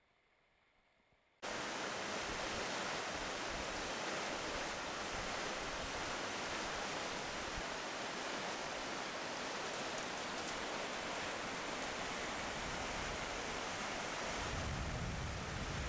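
Steady rush of a mountain trout stream's flowing water, cutting in abruptly about a second and a half in after near silence. A low rumble joins near the end.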